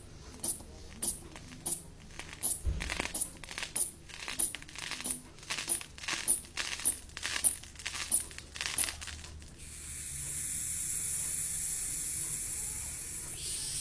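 Rubber inflation bulb of a manual Riester blood-pressure cuff being squeezed about twice a second, each squeeze a short puff of air, as the arm cuff is pumped up. Nearly ten seconds in the pumping stops and a steady hiss of air starts: the release valve is opened and the cuff deflates for the reading.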